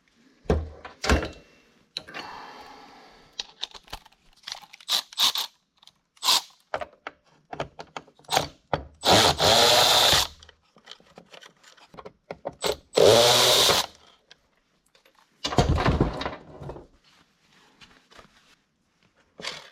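Handling and disassembly noises from a small Homelite leaf blower's starter: scattered clicks and knocks of parts. About nine seconds in, again near thirteen and once more near sixteen seconds, there are louder noisy bursts lasting about a second each.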